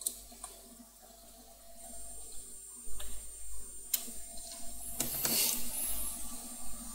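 A few separate sharp clicks from a computer mouse and keyboard, over a faint steady room hum, with a brief rustling noise about five seconds in.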